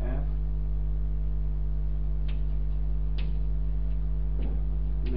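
Steady electrical hum, with a few scattered sharp taps of chalk on a blackboard as it is written on.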